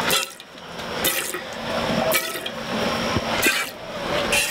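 Hand milking a dairy goat into an empty stainless steel pot: five squirts of milk hiss against the metal, about one a second.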